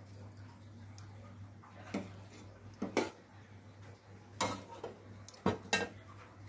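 Stainless steel cooking pots and utensils clinking and knocking as they are handled on a gas stove. There are several sharp metallic clinks, a few about two to three seconds in and a cluster between about four and a half and six seconds, over a steady low hum.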